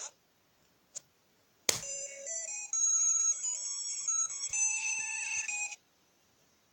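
A sharp click, then a short electronic melody of stepped, beeping high notes lasting about four seconds that cuts off abruptly, like a phone ringtone or a synthesized jingle.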